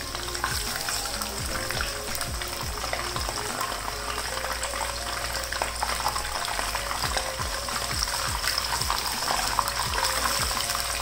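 Nargisi koftas, boiled eggs wrapped in chicken mince, sizzling and crackling as they shallow-fry in oil over a low flame in a non-stick wok. A silicone spatula nudges and turns them over in the oil. The crackling grows a little louder toward the end.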